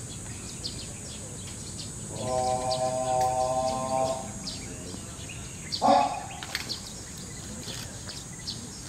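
A drill command shouted across the parade ground: one voice holds a long, level call for about two seconds, then gives a short, sharp shout about two seconds later. Birds chirp throughout.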